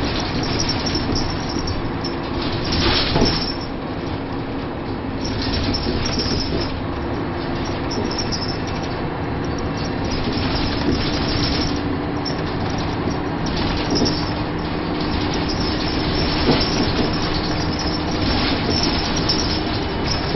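Cabin of a DAF Paladin single-deck bus on the move: a steady engine drone and road noise, with the body panels and fittings rattling throughout. Short sharp knocks come through at a few points, about three seconds in and twice in the later part, as the stiff suspension takes bumps in the road.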